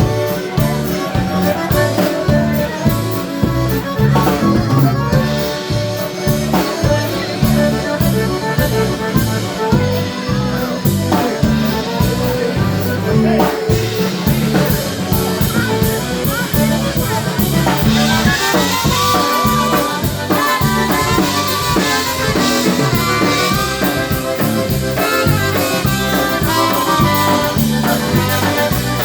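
Live polka band playing an instrumental tune: horns and a melody line over drum kit and bass keeping a steady, even beat.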